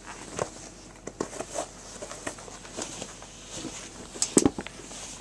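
Sneakers being handled and shifted on a carpeted floor: scattered rustles and soft knocks, with a louder cluster of knocks about four seconds in.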